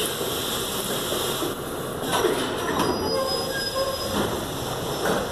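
R68A subway train pulling out of the station, the cars rumbling along the track with thin, high wheel squeal about halfway through.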